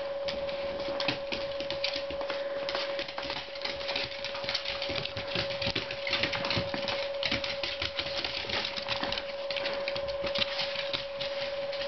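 Basenjis scuffling about: dense, irregular clicking and tapping, over a steady high-pitched hum.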